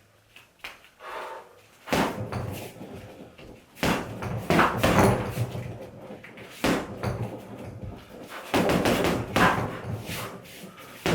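Punches landing on a home heavy bag in flurries: bursts of thuds a second or two apart, with short pauses between combinations.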